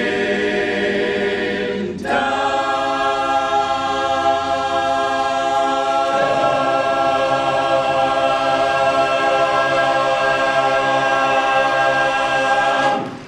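Barbershop chorus singing a cappella, holding the final sustained chord of the song: the chord shifts about two seconds in, then is held loud and steady until a clean cut-off near the end.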